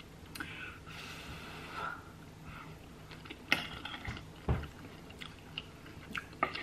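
Close-miked eating: soft, wet chewing of a mouthful of chili cheese fries. Scattered small clicks and a low thump about halfway through come from the metal fork and the ranch cup being handled.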